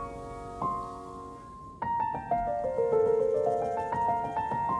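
Background piano music, gentle sustained notes falling and rising in runs.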